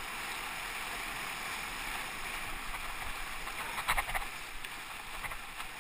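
Whitewater of a broken wave rushing and fizzing around a bodyboard, heard from a camera on the board, with a few sharp splashes about four seconds in.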